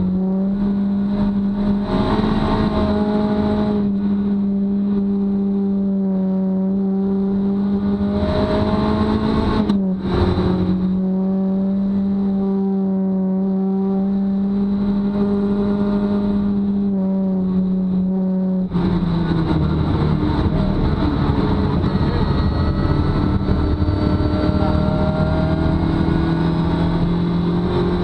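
Rally car engine running hard at steady high revs, heard from inside the cabin. The note breaks briefly with a click about ten seconds in, and about two-thirds of the way through it drops abruptly in pitch and becomes rougher before climbing again.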